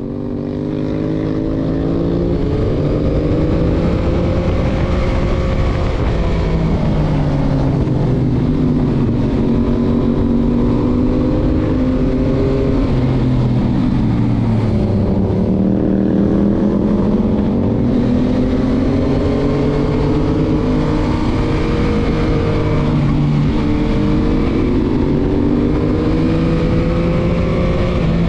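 Stock 2021 Yamaha MT-09's three-cylinder engine heard from the rider's seat while riding, its pitch rising and falling gently with the throttle through a run of bends, over wind rush on the microphone. The sound fades in over the first second or two.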